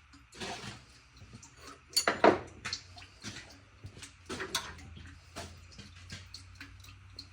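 Hand tools and small metal parts clinking and rattling during engine teardown work: irregular light clicks and knocks, with a louder clatter about two seconds in.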